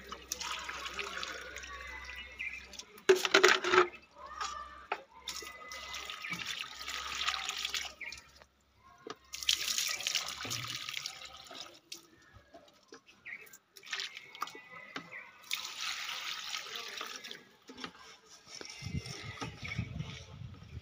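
Water poured from a plastic mug into plant pots, in about four pours of a few seconds each, as the mug is refilled from a bucket of water; a short, louder splash comes about three seconds in.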